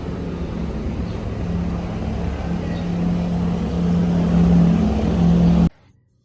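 A motor vehicle running along the road, a steady engine hum over road noise, growing a little louder. It cuts off abruptly near the end.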